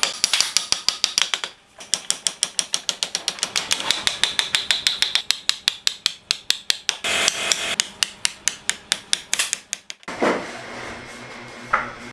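Rapid, regular hammer strikes, about five a second, with a short break about a second and a half in; near the end the striking stops and gives way to a rougher, irregular scraping noise.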